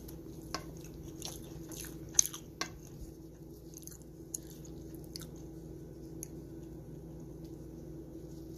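Soft millet dosas being pressed and lifted by fingers on a plate: a scattering of small crackles and clicks, the sharpest about two seconds in, fading out by about six seconds, over a steady low hum.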